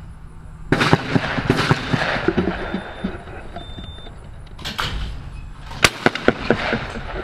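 Shotgun shots: a loud report about a second in and a sharper one near six seconds, each followed by a few lighter knocks.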